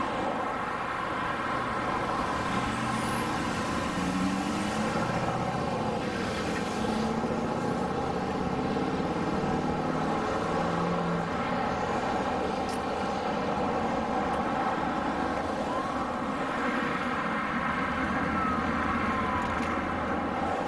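Steady road traffic noise: cars and trucks driving past on a busy highway.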